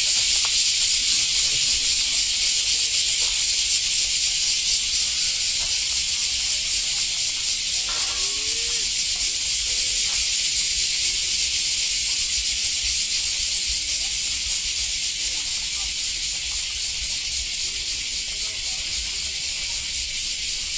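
A loud, steady high-pitched hiss that slowly fades, with faint voices underneath.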